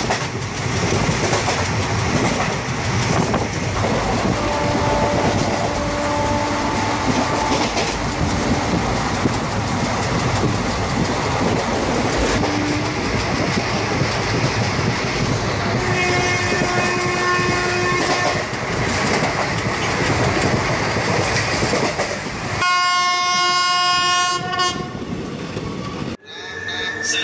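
Passenger train running, with a steady rumble and rattle of the moving coach. A train horn sounds more than once, the loudest a held blast of about two seconds near the end, after which the sound cuts off suddenly.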